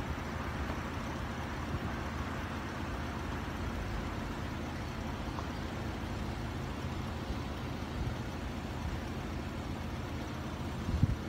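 A car engine idling steadily at close range.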